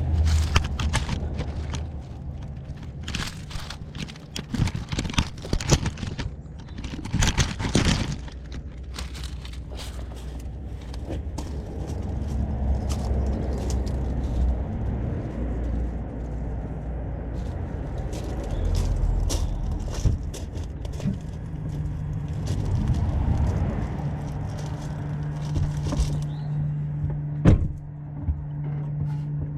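2012 Audi A4 with S tronic gearbox running, with an irregular rattle of sharp clicks over its steady engine hum, most frequent in the first eight seconds. A gearbox specialist traced the rattle to a badly burned-out clutch caused by a faulty mechatronic unit.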